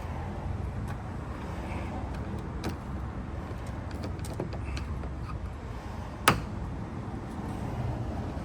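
Small flathead screwdriver prying a plastic piece off a 2024 Nissan Kicks rear exterior door handle: a few light clicks, then one sharp snap about six seconds in as the piece comes away. A steady low rumble lies underneath.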